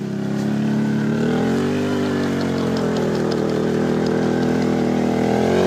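A vehicle engine running under load; its pitch rises a little about a second and a half in, then holds steady. It cuts off suddenly at the end.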